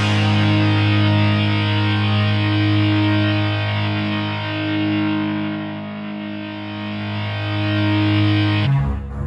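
Background rock music: a sustained, distorted electric guitar chord ringing with effects, changing abruptly to a different choppier music section near the end.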